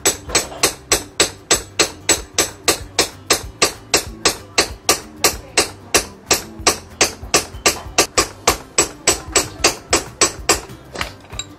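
A rapid, evenly spaced series of sharp knocks, about three or four a second, with background music.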